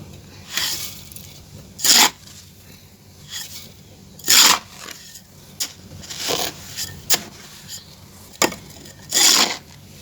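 Dry clay being crumbled and scraped by hand: a series of short gritty crunches a second or two apart, mixed with a few sharp clicks.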